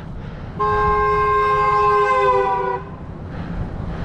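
Car horn held in one steady blast of about two seconds, sounded by a passing driver at a cyclist on the road.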